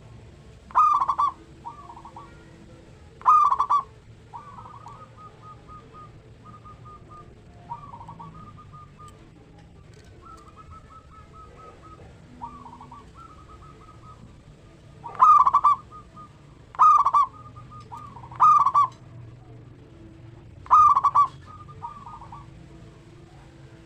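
Zebra doves (perkutut) cooing: six loud, short phrases of the song, with fainter runs of quick repeated coos in between, during the middle stretch.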